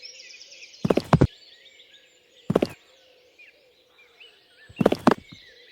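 Three short clusters of knocks, about two seconds apart, over a steady background of many small high-pitched chirps.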